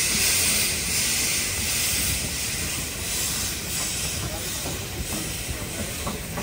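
A steady high-pitched hiss that slowly eases off, over a low rumble.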